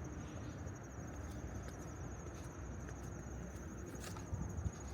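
Insects trilling in a continuous high-pitched pulsing drone, over a low outdoor hum, with faint irregular footstep-like clicks.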